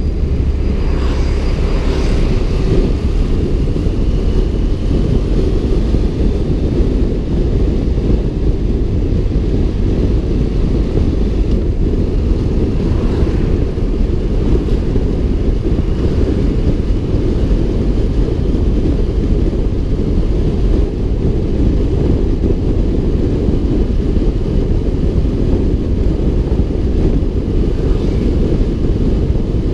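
Onboard riding sound of a BMW F 700 GS motorcycle: steady wind rumble on the microphone over the bike's running engine.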